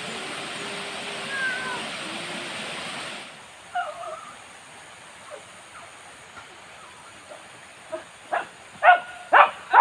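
Small waterfall rushing steadily, cutting off suddenly about three seconds in. Near the end a dog barks repeatedly, about two loud barks a second.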